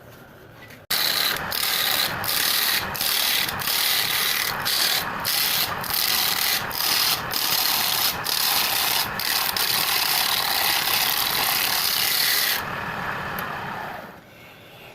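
Abrasive scraping on wood in a steady run of strokes, about one and a half a second. It starts abruptly about a second in and stops near the end.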